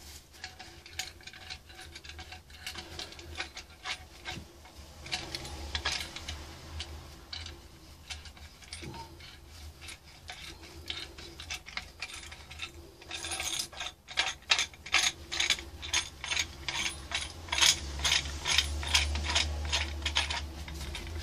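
Hand tools clicking and rattling as a part of a homemade drill-powered lathe is unfastened and taken off. About two-thirds of the way in, a steady run of sharp clicks begins, a few each second.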